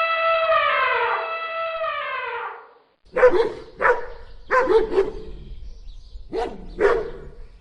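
A long held call that falls in pitch and dies away, then, after a short gap, a dog barking: six sharp barks, mostly in pairs.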